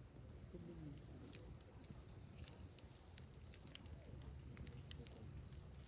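Near silence: a faint low background hum with a scattering of small, faint clicks.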